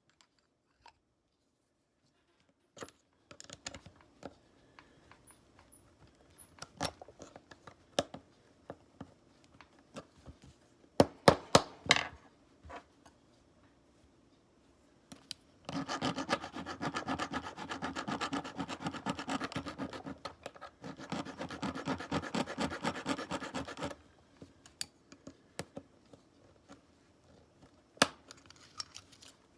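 Hand work on an old folding knife: a few sharp clicks and knocks, then about eight seconds of fast, even scraping strokes of a hand tool rubbing on the knife, with one short break partway through.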